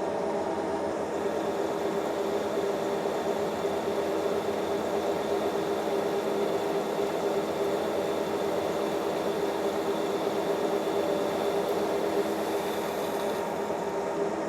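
Monarch Series 60 metal lathe running steadily with an even hum of several steady tones.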